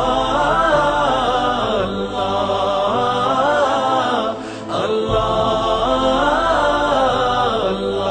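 Vocal nasheed interlude: voices singing a slow, winding melody in two long phrases over a low steady drone, with a short break between the phrases about halfway through.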